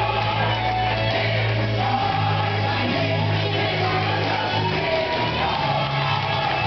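Gospel choir song played over loudspeakers: a choir sings long held notes over a band with a steady bass line.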